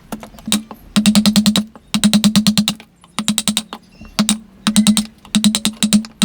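Rapid hammer taps on a chisel cutting wood, struck about ten times a second in short bursts with brief pauses between them.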